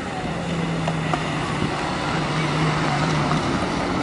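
Small hatchback car driving across dirt ground toward the listener: a steady engine hum with tyre and road noise, getting louder as the car comes close.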